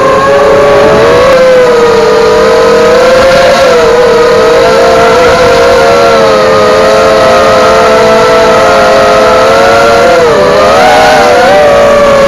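Eachine Falcon 250 quadcopter's motors and propellers buzzing loudly in flight, several close pitches wavering together as the throttle changes, with a short dip and wobble about ten seconds in.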